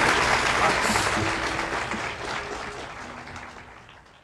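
Concert audience applauding on a live recording, the applause fading out steadily to silence at the end.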